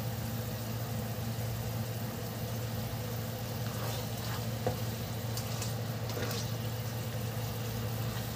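Black bean sauce sizzling in a pan around a whole fried pomfret as it is moved with a spatula, with a few light spatula clicks around the middle, over a steady low hum.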